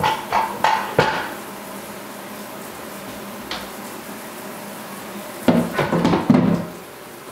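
Pots, pans and utensils clattering as dishes are cleaned up at a kitchen sink: a few sharp knocks in the first second, a single click midway, and a longer burst of clatter near the end.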